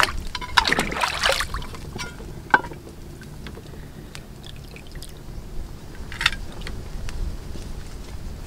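Hands sloshing and splashing in a small metal tin of water while rinsing shrimp, with water dripping as they are lifted out. A burst of splashing comes in the first second and a half, then smaller splashes and drips, with one more splash a little after six seconds.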